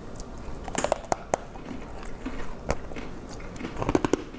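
A person biting into and chewing a piece of very hard homemade English toffee topped with chocolate and chopped almonds: irregular sharp crunches, with a cluster of them near the end.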